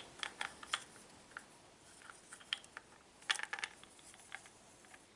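Faint, scattered clicks and light clinks of small metal parts being handled as a mixer-jar blade assembly, with its spring, is fitted back together, with a short cluster of clicks about three and a half seconds in.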